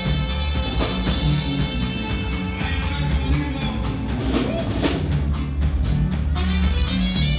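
Live Mexican regional band playing an instrumental passage: saxophone, button accordion, guitars and drum kit over a steady beat.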